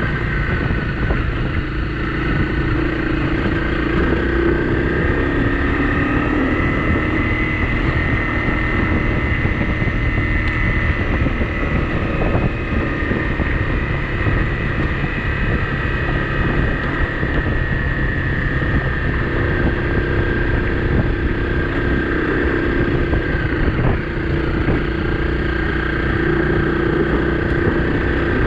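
Honda CRF250 Rally's single-cylinder four-stroke engine running steadily at cruising speed on a gravel road, with wind noise on the microphone.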